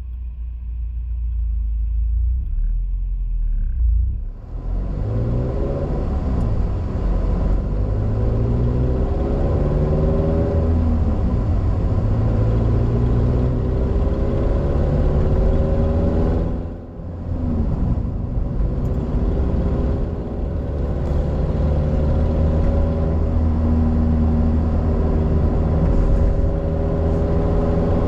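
Car driving, heard from inside the cabin. There is a low rumble at first, then louder engine and tyre noise from about four seconds in. The engine pitch climbs repeatedly as the car accelerates through its gears, and the sound dips briefly about two-thirds of the way through.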